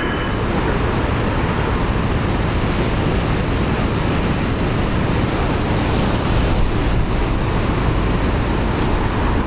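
Strong storm wind buffeting the microphone: a steady rushing noise with a constant low rumble.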